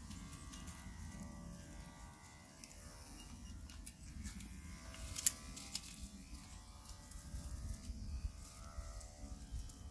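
Electric dog-grooming clippers running steadily with a buzz while shearing a Great Pyrenees's thick coat, with a few light clicks, the sharpest about five seconds in.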